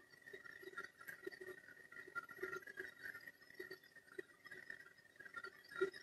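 Faint steady whir of a small 125 mm bathroom extractor fan running, blowing air down a plastic duct, with a few faint irregular ticks and a soft knock near the end.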